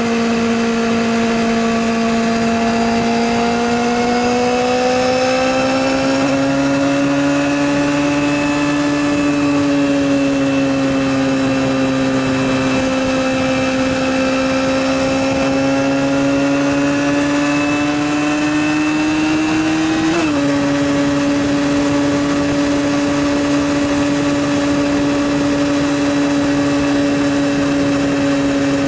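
Yamaha YZF-R6 sport bike's inline-four engine running at steady riding revs, its pitch easing up and down slowly, with a quick drop in revs about twenty seconds in.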